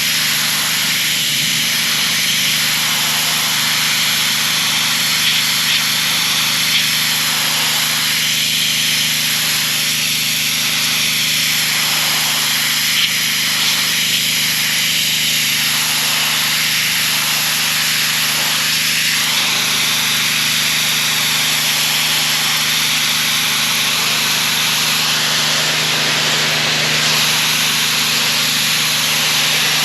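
Gas-engine pressure washer running steadily under load, its engine hum beneath the loud hiss of the high-pressure water jet blasting dirt and algae off a masonry retaining wall; the spray's hiss swells and fades as the jet moves across the surface.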